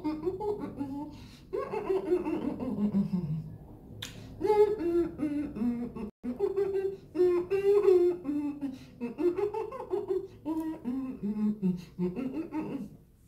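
A woman's muffled voice with her mouth full of boiled egg: closed-mouth humming and laughing in sliding, rising and falling tones, in a string of bursts with short pauses.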